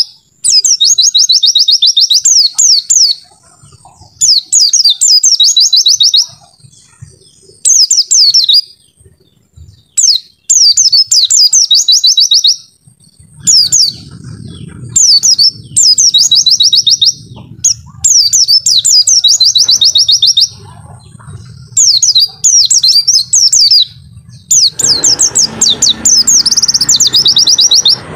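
White-eye (pleci) singing in repeated fast, high twittering phrases, each a second or two long, with short pauses between them. A low background rumble comes in about halfway and grows louder near the end.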